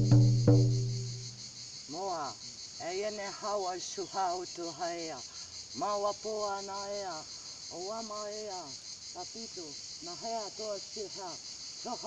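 Hide frame drum struck a few more times with a beater and left to ring out low in the first second; then a woman's wordless chant in long rising-and-falling calls, over a steady high chirring of insects.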